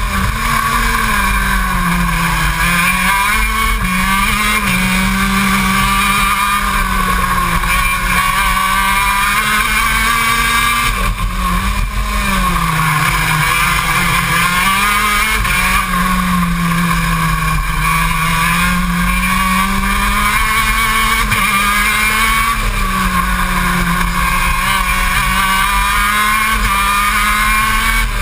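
KZ2 shifter kart's 125cc two-stroke engine heard onboard at racing speed, its pitch repeatedly climbing under acceleration and dropping away into corners.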